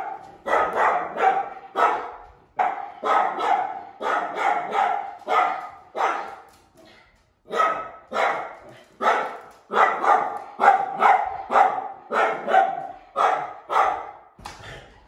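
Dog barking excitedly and repeatedly in quick runs of sharp barks, with a short pause about seven seconds in. It is alert barking at someone arriving at the front door.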